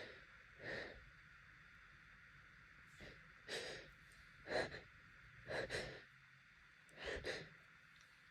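A person with allergy congestion sniffling and breathing in short breaths, about half a dozen spread through, some in quick pairs.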